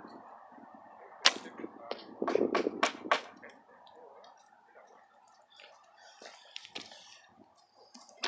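A traditional bow shot: a sharp snap of the string on release about a second in, followed by a few fainter knocks and clicks over the next two seconds. After that, faint scattered crunching of footsteps on gravel.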